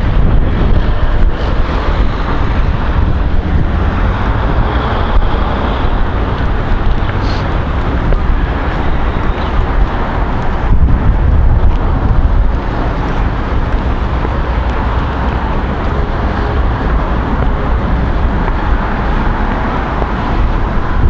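Wind buffeting the microphone: a loud, continuous low rumble and rush.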